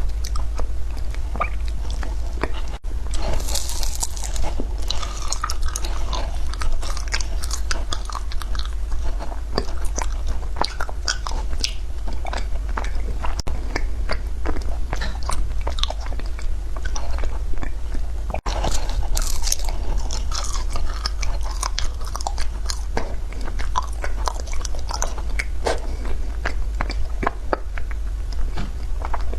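Frozen matcha ice being bitten and chewed close to the microphone: continuous crunching and crackling, with sharp crisp bites about four seconds in and again near the twenty-second mark. A steady low hum runs underneath.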